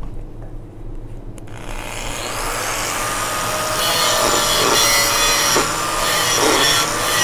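A click, then an angle grinder grinds into a weld bead on a steel pipe from about a second and a half in, with a steady whine over the grinding noise as it grows louder. The grinder is gouging out porosity in the weld a little at a time, so as not to cut down into the root pass.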